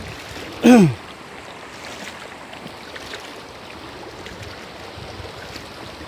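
Shallow stream water running over stones, a steady rushing hiss. About two thirds of a second in, a single short, loud vocal sound from a person slides down in pitch.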